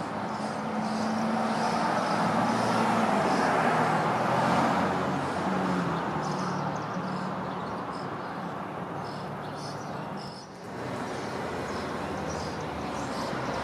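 Street traffic noise, swelling as a vehicle passes a couple of seconds in and easing off later, with faint repeated high chirps from European starling nestlings begging in a nest in the eaves.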